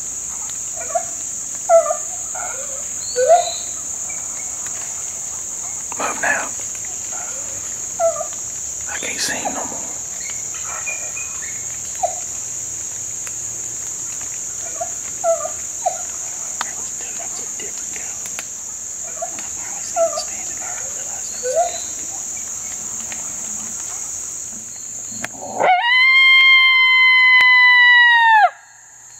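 Steady high drone of insects, with scattered short chirps. Near the end, a mouth-blown coyote howler gives one long lone howl that rises, holds and drops away at the end.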